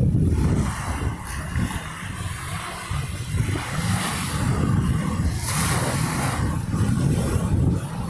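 Wind buffeting the microphone in a loud, uneven low rumble, with small sea waves washing onto the sand; a wave's hiss swells about five and a half seconds in.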